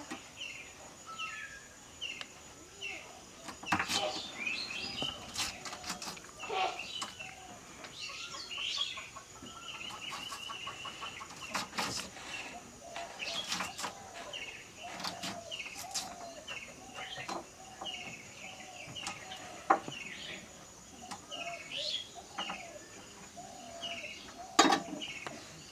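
Chickens clucking with small birds chirping and trilling, and a few sharp knocks, the loudest two near the end.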